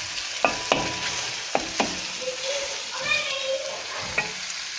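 Diced chicken sizzling in oil and spiced tomato sauce in a frying pan while a wooden spoon stirs it, with a few sharp knocks and scrapes of the spoon on the pan, mostly in the first two seconds and once more near the end.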